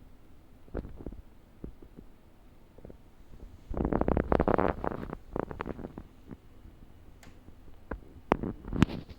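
Daikin air conditioner making an abnormal noise: irregular clicking and crackling, with a dense run of it about four seconds in and another cluster near the end. The fault is not yet diagnosed.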